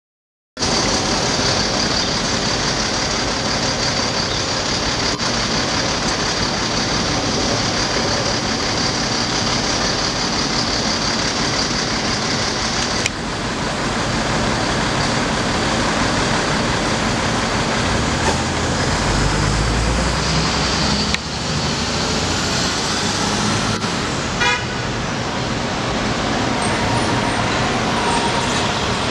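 Street traffic noise from cars and trucks queued and moving on a city street, among them a cement mixer truck. A heavier low engine rumble swells about two-thirds of the way through.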